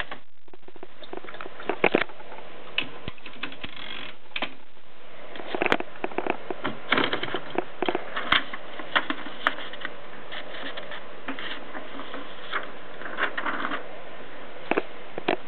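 Keys of a 1923 Adler No. 7 typewriter being struck, giving irregular sharp clacks. They come sparsely over the first few seconds and then in loose runs.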